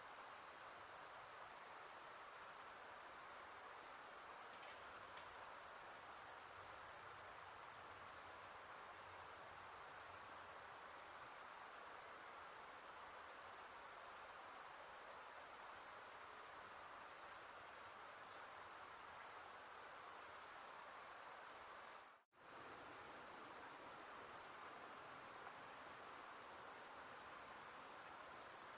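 Steady, high-pitched chorus of chirping insects, cricket-like, running without a break except for a split-second dropout to silence about three quarters of the way through.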